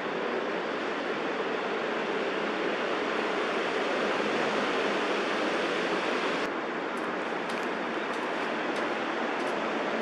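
Steady rushing ambient noise, like distant traffic or wind. The hiss thins about six and a half seconds in, and a few faint ticks follow.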